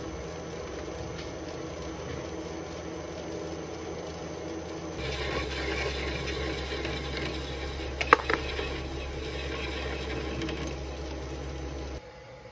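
Metal lathe running with a steady hum while it turns a bronze bar. About five seconds in, a hand-held tool is pressed against the spinning bronze, adding a rough scraping hiss and a deeper rumble, with two sharp clicks partway through. Near the end the sound drops abruptly.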